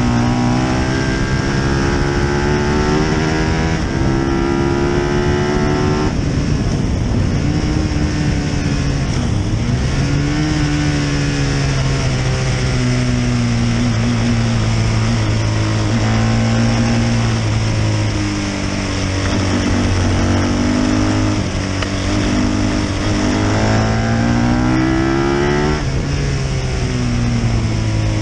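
Britten V1000's 999 cc 60° V-twin engine running hard on track. It revs up in rising sweeps, dropping in pitch at each gear change about half a dozen times, with steady wind noise on the onboard microphone.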